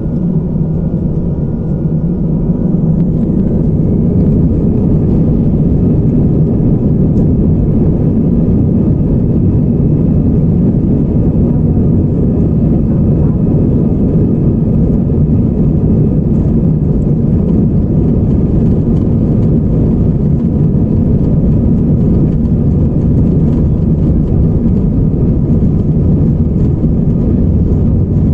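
Airbus A320 jet engines heard in the cabin from a window seat beside the wing as the plane rolls along the runway: a loud, steady rumble that builds over the first few seconds and then holds.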